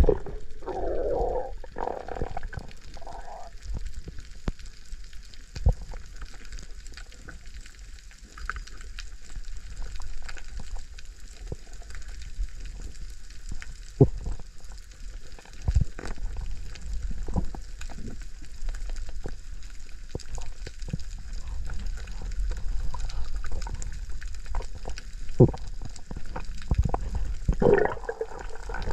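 Underwater sound picked up by an action camera in its housing: a steady low rumble of moving water with scattered sharp clicks, and gurgles about a second in and again near the end.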